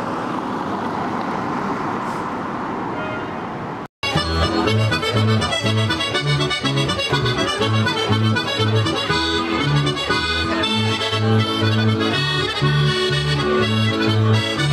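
Street traffic noise for about four seconds, then an abrupt cut to background music with a bass line stepping in a steady rhythm.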